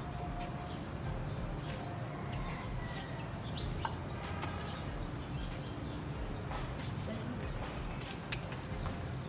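Steady low background rumble with faint, scattered bird chirps, and one sharp click a little over eight seconds in.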